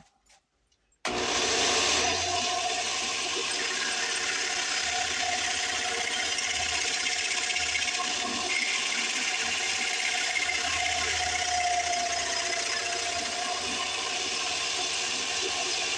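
Homemade motor-driven die filer with a reciprocating diamond file, switched on about a second in and then running steadily while a workpiece is filed, with a faint wavering whine over the rasping.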